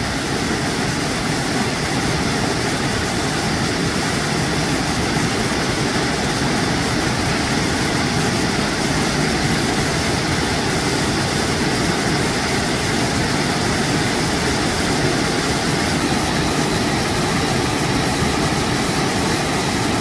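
Waterfall cascading over rock close to the microphone: a steady, unbroken rush of falling and churning white water.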